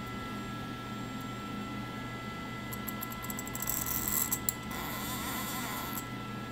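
CNC lathe's Z axis jogged by a manual pulse generator handwheel: a steady drive hum with fixed whine tones, a run of rapid ratchet-like clicks about halfway through, then a short whirr near the end as the axis moves.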